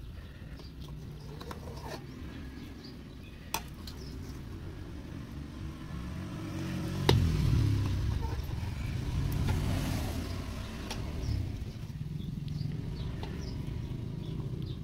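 Fish broth boiling in an aluminium pot over a wood fire while foam is skimmed off with a ladle. A low rumble swells through the middle, with two sharp knocks, the louder one about seven seconds in.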